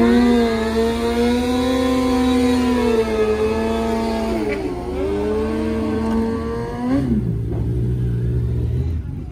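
Kawasaki ZX-10R inline-four engine held at high revs. Its note dips briefly about halfway through and climbs back, then drops off sharply near the end to a lower, steady note.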